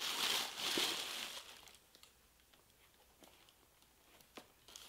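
Tissue paper crinkling and rustling as a sneaker is pulled out of its wrapping in the shoebox, loudest for about the first second and a half, then a few faint taps of the shoe being handled.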